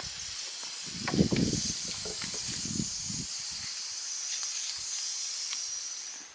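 Cookware over a wood fire hissing steadily: a pressure cooker and a wok of frying vegetables, with a few clinks and knocks in the first half. The hiss cuts off near the end.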